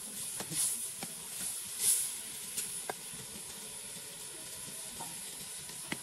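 Food sizzling and hissing in a pot over an open wood fire, steady, with a few light clicks from a metal ladle stirring in the first few seconds.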